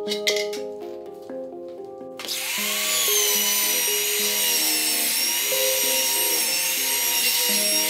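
Background music of gentle, stepped melodic notes throughout. About two seconds in, a handheld rotary grinder starts up with a high, wavering whine and grinding hiss as it works the edge of a freshly cut hole in a steel handpan shell.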